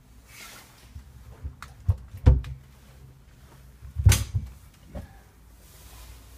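Knocks and bumps of a cupboard door and its contents being handled, a few sharp knocks about two seconds in and the loudest just after four seconds.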